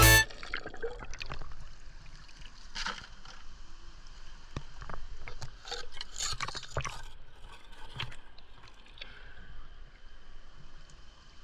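Stream water sloshing and gurgling around a hand scoop as it digs into a gravel streambed, with stones clicking and scraping against the scoop at irregular moments.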